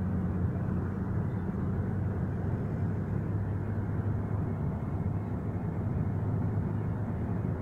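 Steady engine and road noise of a moving city bus, heard from inside the cabin, with a constant low hum.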